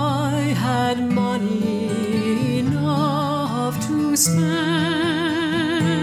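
Background music: a melody with strong vibrato over sustained lower notes.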